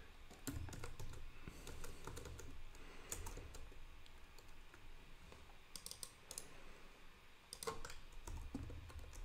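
Quiet typing on a computer keyboard: scattered key clicks in short runs, with pauses between.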